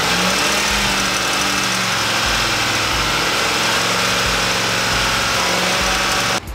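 Pickup truck engine revved up and held at a steady raised speed, charging a car's dead battery through jumper cables. The pitch rises just at the start, then holds steady until the sound cuts off abruptly near the end.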